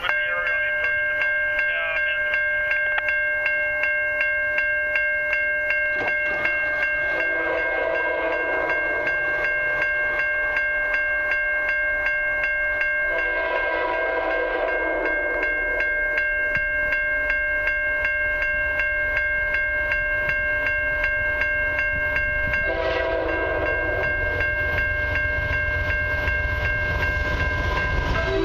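A grade-crossing bell rings steadily while the approaching lead locomotive, CN 2133, sounds its air horn in three long blasts. The low rumble of the locomotive and train grows toward the end as it reaches the crossing.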